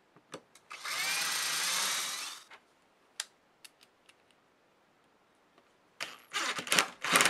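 Cordless drill with a 9/64-inch bit boring a pilot hole into plywood, running steadily for under two seconds. About six seconds in, a cordless impact driver drives a #10 wood screw with a washer into the hole in short bursts of rapid impacts, louder than the drill.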